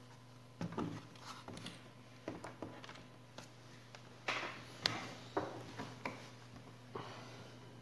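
Irregular clicks and knocks of a laptop's plastic case being handled and fitted, over a faint steady hum.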